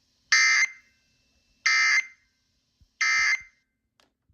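Three short bursts of Emergency Alert System data tones, a little over a second apart: the end-of-message code that closes a severe thunderstorm warning broadcast.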